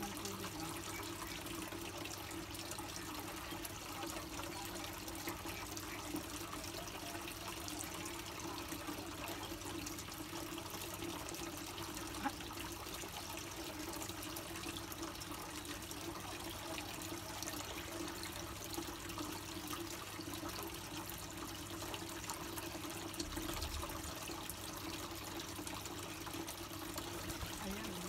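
Water trickling steadily, with a faint steady hum beneath it and a single click about twelve seconds in.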